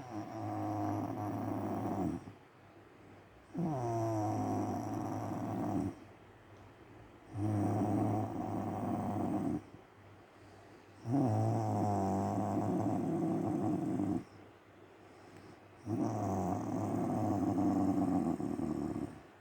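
A woman snoring in sleep: five long snores, each two to three seconds long, with short quieter pauses between them. Two of the snores slide down in pitch as they begin.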